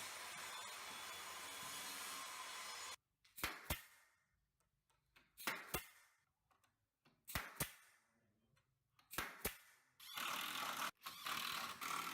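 A power tool running steadily, stopping about three seconds in, then four pairs of sharp knocks on wood about two seconds apart, then a power tool running again near the end with brief breaks.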